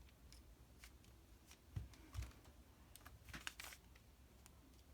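Faint plastic clicks and clacks of a twisty puzzle cube being turned by hand, with a quick flurry of turns about three seconds in and a couple of soft thumps of handling around two seconds in.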